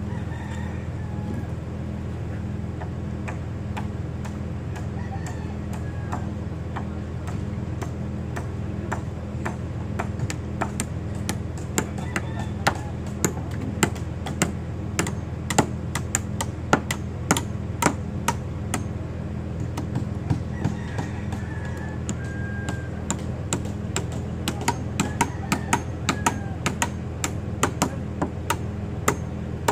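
Repeated sharp knocks of hand tools striking concrete, sparse at first and then coming about two a second through the second half, over a steady low engine hum.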